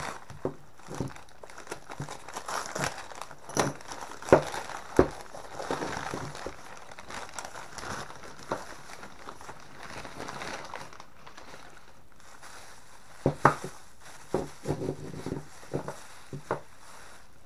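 Newspaper wrapping crumpling and crinkling as it is pulled off a revolver, then a thin plastic bag rustling, with several sharp clicks or knocks along the way.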